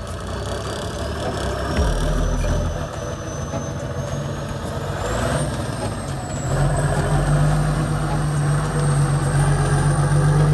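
Engine of a six-wheeled ZIL-131 trial truck working hard under load as it crawls over rough, rocky ground, growing louder about two seconds in and again from about six and a half seconds. A thin high whine slowly rises in pitch over it.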